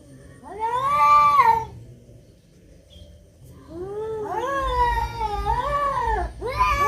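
Domestic cats caterwauling in a fight: a drawn-out wail about a second in, a short lull, then a longer yowl that wavers up and down in pitch and runs on to the end. These are the threat yowls of a cat standoff.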